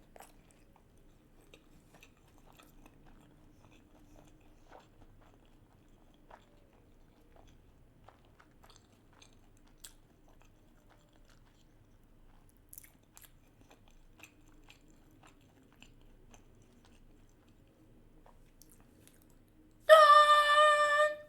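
Quiet close-up chewing of a mouthful of raw salmon sushi, with small scattered mouth clicks. Near the end a loud, steady high-pitched held tone cuts in for about a second and a half.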